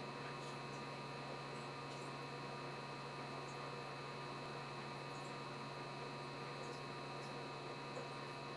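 Steady low electrical hum with faint high-pitched whining tones over it, and a few faint ticks: background room tone with no distinct event.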